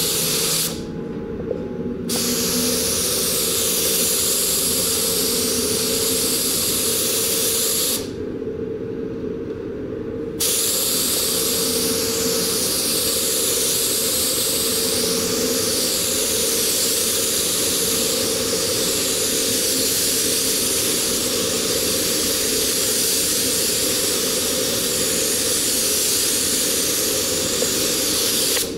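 Iwata WS-400 spray gun with a 1.5 HD nozzle hissing steadily as it sprays primer-sealer in long passes. The hiss stops twice when the trigger is released: briefly about half a second in, and for about two seconds around eight seconds in.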